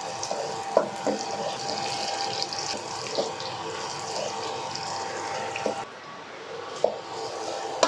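Garlic sizzling in hot oil in a wok, a steady hiss with a few short knocks.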